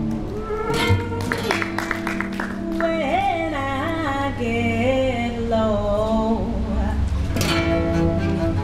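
Jazz trio playing a tune on upright double bass and acoustic guitar, with a woman singing a wavering melody line. Near the end the double bass is bowed.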